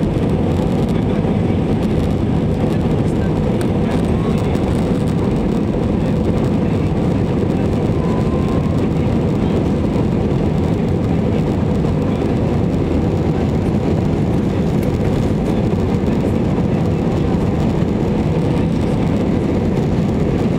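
Steady cabin noise of an Airbus airliner climbing just after takeoff: jet engines and rushing air heard from inside the cabin. The noise is mostly low-pitched and holds at one even level.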